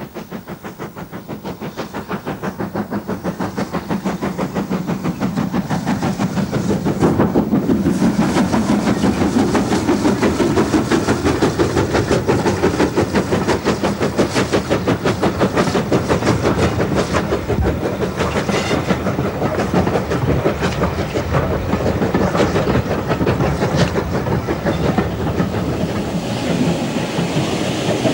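Working steam of a GWR 5600-class 0-6-2 tank engine hauling a train, a rapid, even beat that grows louder over the first several seconds as it nears and passes close by, then carries on as the coaches roll past.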